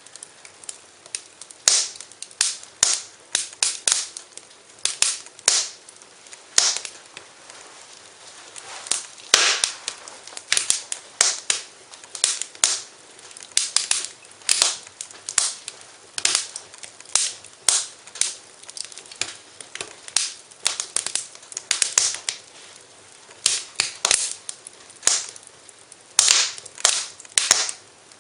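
Wood fire crackling, with sharp pops at irregular intervals, often several a second, over a faint steady hiss.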